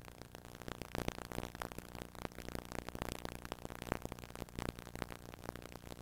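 Faint crackling static and hiss from a VHS tape, with irregular clicks, typical of a blank or unrecorded stretch of tape.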